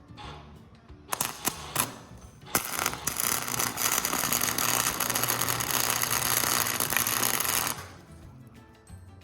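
Welder arc crackling on steel as a bracket is welded on: a few short sputtering starts about a second in, then a steady crackling weld for about five seconds that stops near the end. Faint background music underneath.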